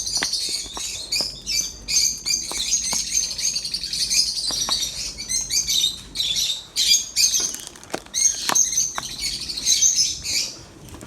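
A flock of aviary lovebirds chattering, a dense run of high-pitched chirps with many short sharp calls.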